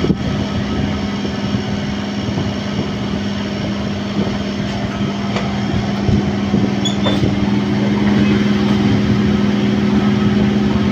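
Running noise of a suburban electric local train heard at its open doorway: a steady motor hum over wheel-and-track rumble. From about seven or eight seconds in, an oncoming local train passes close on the adjacent track, adding a second hum, and the noise grows louder.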